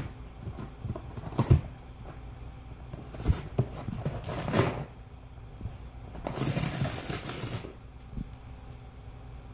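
Golden retriever tearing and chewing a cardboard box: scattered knocks and rustles, a short tearing burst about four and a half seconds in, and a longer rip of cardboard lasting over a second from about six seconds in.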